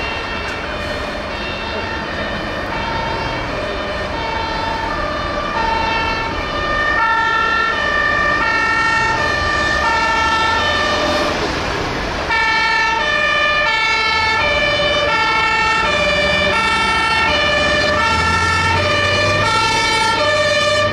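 Two-tone sirens (German Martinshorn) of several fire engines, each switching between a high and a low note, sounding together out of step. The sirens get louder about twelve seconds in, and a heavy truck engine adds a low rumble near the end as an engine passes.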